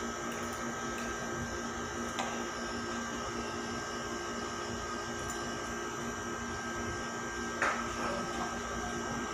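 A steady machine hum holding several fixed tones, with a light click of cutlery about two seconds in and a sharper one near the end.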